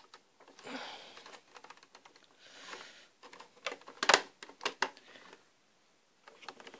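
Small hard clicks and taps of a 1/18-scale toy helicopter model being handled, its cockpit canopy being lifted off, with soft rustling between them. The sharpest clicks come about four seconds in, followed by a short quiet spell near the end.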